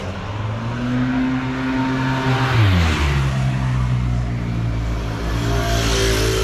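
Street traffic passing close by: a vehicle engine's steady hum drops in pitch about two and a half seconds in as it goes past, with tyre noise swelling around three and again around six seconds in.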